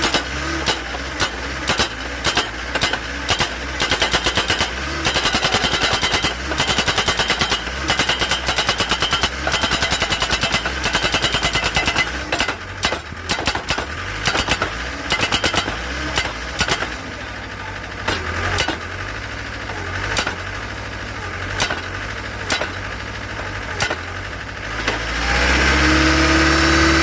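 Hydraulic breaker of a crash-barrier post-driving machine hammering a steel post into the ground in runs of rapid, evenly spaced blows, then in slower single strikes, over the steady drone of the machine's 73 kW engine. Near the end the blows stop and the engine revs up.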